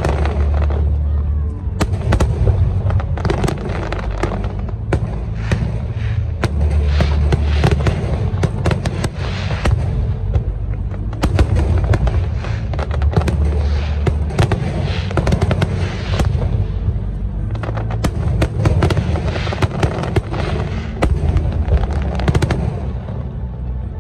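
Fireworks show: a dense, continuous barrage of bangs and crackling bursts, easing off a little near the end.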